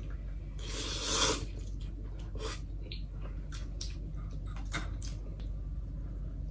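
A man slurping a mouthful of instant noodles about a second in, then chewing with a few short wet smacks and clicks.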